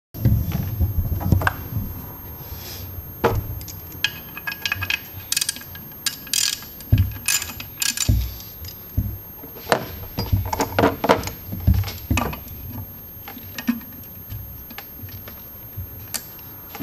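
Hand tools and metal engine parts clinking and knocking, in irregular scattered clicks and clinks, a few of them ringing briefly.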